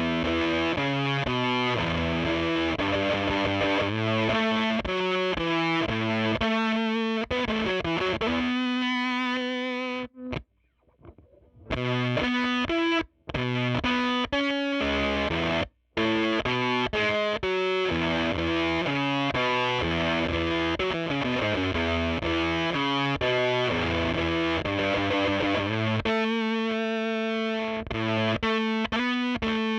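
Electric guitar played through a Jext Telez Dizzy Tone V7 fuzz pedal, a run of fuzzed notes with the sputtering 'Velcro' fuzz that makes notes die away quickly. The sound drops out for over a second about ten seconds in, and briefly twice more.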